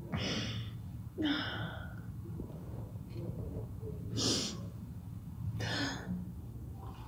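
A woman crying: four sharp, breathy gasping sobs, over a steady low hum.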